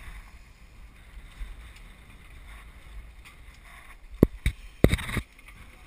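Wind buffeting the microphone of a small action camera hoisted up a yacht's mast, a steady low rumble. About four seconds in come a few sharp knocks, a quick cluster of hard taps.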